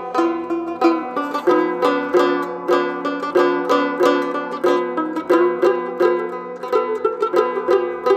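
Background music: a fast, picked plucked-string tune over a steady low drone.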